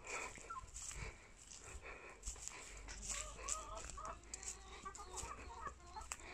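Hens clucking faintly in the background, short wavering calls on and off, with a few soft knocks from handling.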